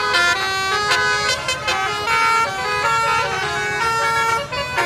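Basuri telolet bus horn playing a tune: a quick run of held horn notes, the pitch stepping from note to note every fraction of a second.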